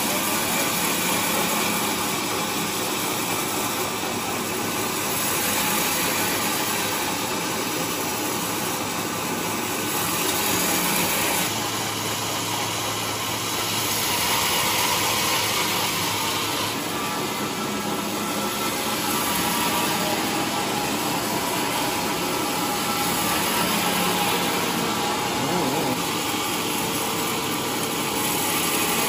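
Large log band saw running steadily as its blade cuts through a trembesi (rain tree) log into slabs, with gentle swells in loudness every few seconds.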